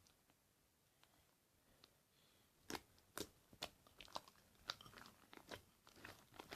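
Sticky slime being squeezed and kneaded by hand, making irregular wet clicks and pops several times a second. The popping begins about two and a half seconds in, after a near-silent start.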